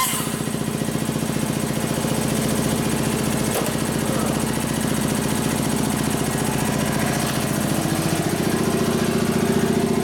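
Hand grinder with a dull bit smoothing the exhaust port of a Harley shovelhead cylinder head: a steady, fast-pulsing grinding run that grows a little stronger in the last couple of seconds.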